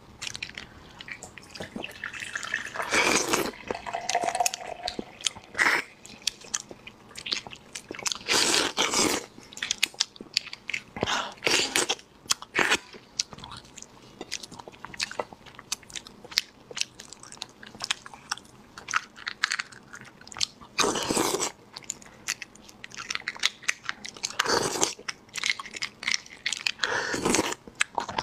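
Close-miked eating of spicy beef bone marrow: wet chewing with many small clicks, and half a dozen louder noisy bites spread through.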